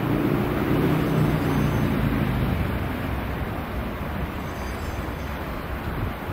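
Third-rail electric multiple unit in Network SouthEast livery running in, its nose-suspended traction motors giving a low hum that fades away about halfway through, leaving a steady rumble.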